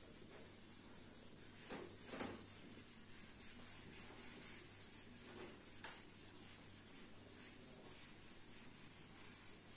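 Whiteboard eraser rubbing across a whiteboard: faint back-and-forth wiping strokes, a couple of them louder around two seconds in and one near six seconds.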